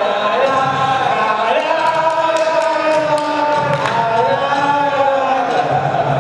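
Chant-like singing with long held notes that slide slowly up and down, without clear words.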